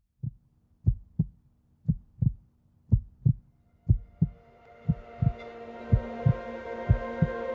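Heartbeat sound effect: paired low thumps, lub-dub, about once a second, with a soft music pad swelling in beneath from about halfway through.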